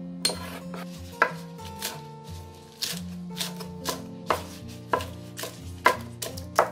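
Kitchen knife chopping spring onions and then green leaf lettuce on a wooden cutting board. The blade knocks sharply on the board at an uneven pace, about one to two strokes a second.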